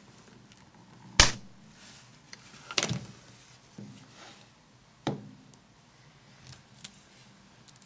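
A few sharp plastic clicks and knocks as the snap-fit clips of a Nokia 6680 cover are released and the cover is pulled off the phone, the loudest about a second in and further ones around three and five seconds in.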